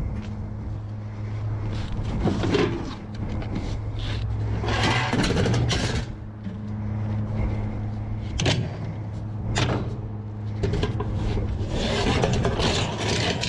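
Sheet-metal scrap ducting being handled on a loaded trailer: scraping and rubbing, with a couple of sharp metal clanks. A steady low hum runs underneath.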